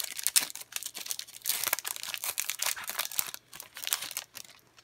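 Foil wrapper of a trading card pack being torn open and crinkled by hand, a dense crackling that dies away near the end.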